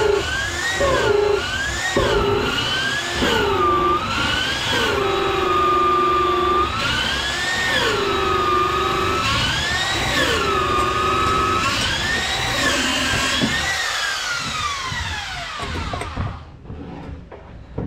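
Electric drill boring into wood. Its motor whine dips and recovers every second or two as the bit loads and frees, then winds down and stops near the end.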